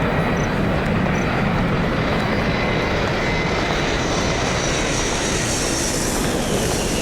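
Jet airliner engine running, heard through airport background noise as a steady rumble. A high whine and hiss build over the second half. A few short high beeps sound in the first second or so.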